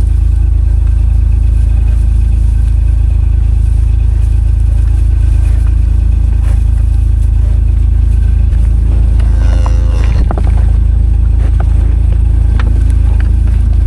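Steady low rumble of a vehicle being driven, heard from inside, with a brief squeak about nine seconds in.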